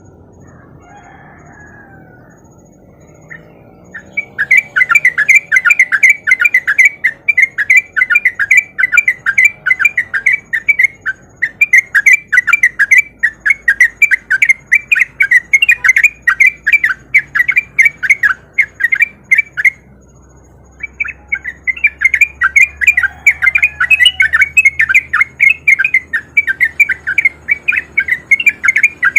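Yellow-vented bulbul (trucukan) singing its fast chattering 'ropel' song, a quick run of bright repeated notes at a few per second. It starts about four seconds in and breaks off briefly twice.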